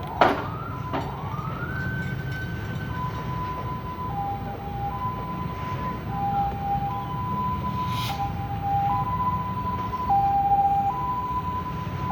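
Two-tone warning siren alternating between a lower and a higher note about once a second, over a continuous low engine rumble. A sharp knock sounds just after the start.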